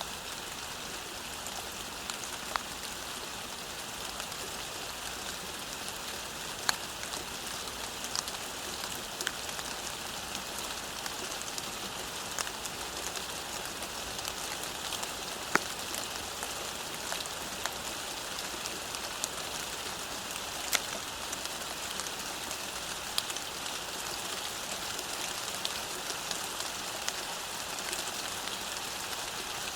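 Steady rain falling on a road, a constant hiss with scattered louder drips and drop splats every second or so.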